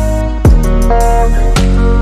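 Instrumental background music: held chords over a deep kick drum that hits twice.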